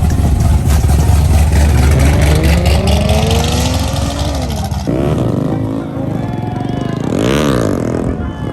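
Car engines revving loudly: one engine's pitch climbs steadily for a few seconds, then about five seconds in another engine revs down and up again.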